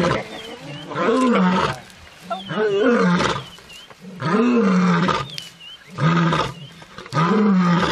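Lioness roaring: a series of about five loud, deep calls, each under a second and rising then falling in pitch, repeated about every one and a half seconds.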